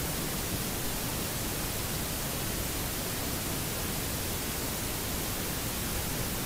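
Steady hissing crackle of an overhead high-voltage power line: corona discharge from its conductors.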